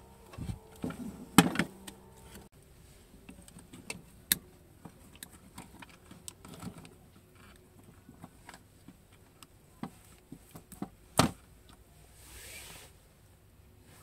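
Handling of a small rusty DC motor and pliers: scattered clicks and knocks of metal and plastic, with two louder knocks about a second and a half in and near eleven seconds in, and a brief soft hiss near the end.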